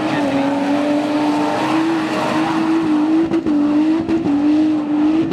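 Off-road 4x4 engine held at high revs under hard load, its pitch steady with small wavers and a few brief dips.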